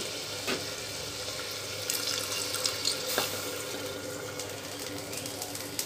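A cup of water poured into an aluminium pressure cooker onto hot fried keema and potatoes, splashing into the pot over a light sizzle of the frying mixture.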